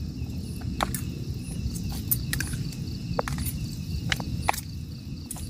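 Crickets chirping steadily in the background over a low rumble. Scattered sharp clicks and taps come from a fork and spoon working spaghetti against a plastic plate.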